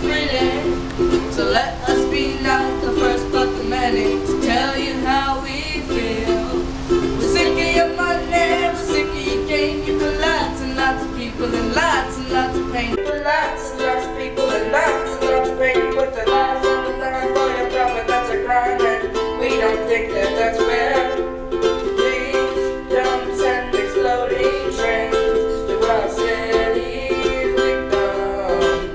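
Ukulele strumming a song's chords, with the low background rumble underneath dropping away about thirteen seconds in.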